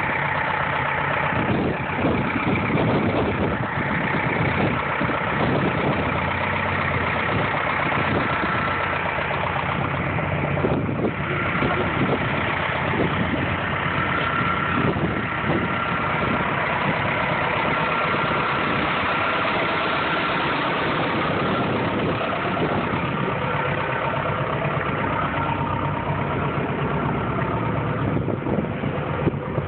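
A car engine running steadily, with a higher steady whine over it.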